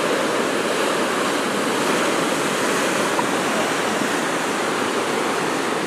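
Ocean surf: a steady rush of waves breaking and washing on the shore.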